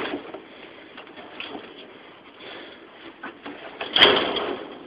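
Wire-mesh mink cage being handled: faint rustling and light ticks, then about four seconds in a sharp click and a louder rattle lasting under a second, as the cage is opened or shut.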